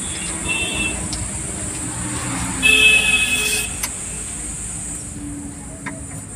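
Vehicle horn: a short toot about half a second in, then a louder honk lasting about a second near the middle, over steady road traffic noise.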